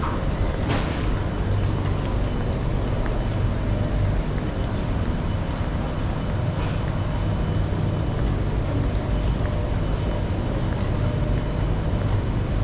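Underground metro platform ambience: a steady low rumbling drone of station machinery and ventilation, with a short hiss about a second in.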